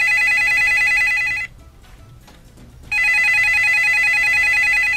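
Telephone ringing with a trilling ring: one ring stops about a second and a half in, and the next starts about three seconds in.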